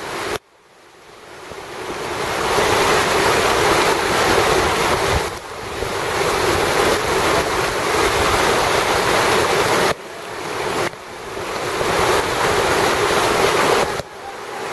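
Steady rush of whitewater rapids, with wind buffeting the microphone. The noise drops sharply several times and swells back up over a few seconds.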